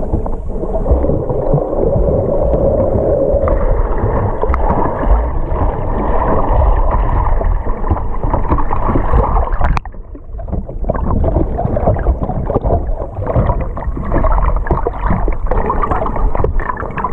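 Water heard from underwater through a camera housing: a dull, muffled rush and gurgle of moving water, with a sharp click about ten seconds in followed by a brief dip in level.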